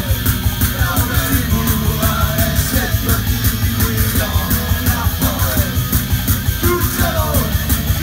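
Punk rock band playing live, with electric guitar and a fast, even drum beat of about four to five strokes a second, loud through the venue's PA.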